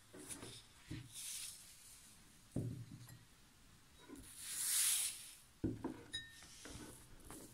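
A drinking glass of water knocked down and shifted on a tabletop a few times, with a brief rustling slide of a hand over paper on the table about four to five seconds in.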